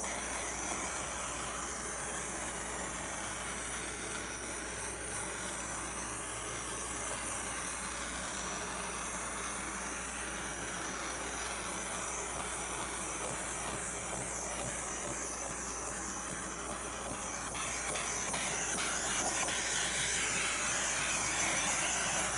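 Small handheld torch flame hissing steadily, getting louder near the end.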